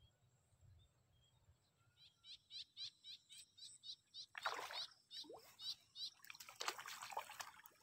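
A small bird chirping over and over, about three short notes a second, then water splashing twice, the first about four and a half seconds in and the second, longer, near the end: a hooked fish thrashing at the surface as it is brought in.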